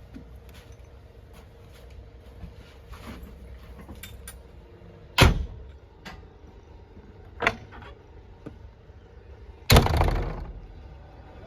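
Backhoe loader working: a steady diesel engine running with a faint whine, and three sharp bangs about five, seven and a half and ten seconds in. The last bang is the loudest, with a rumble that fades over about a second.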